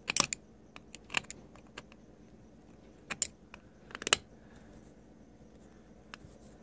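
Small metal clicks and clinks of a hand tool and parts being handled on an Edelbrock 1406 four-barrel carburetor. A few sharp clinks, loudest just after the start and about four seconds in, with fainter ticks between.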